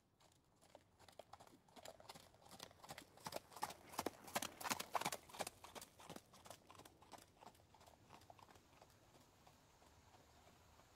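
Horse hooves clip-clopping at a steady walk as a horse-drawn carriage sets off, quiet at first, growing louder to a peak about four to five seconds in, then fading away.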